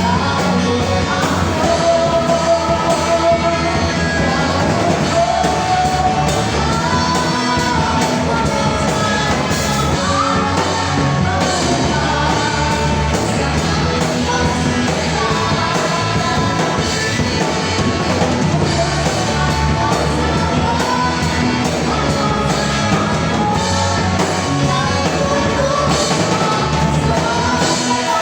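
Live band with drum kit playing a song, a vocalist singing over it.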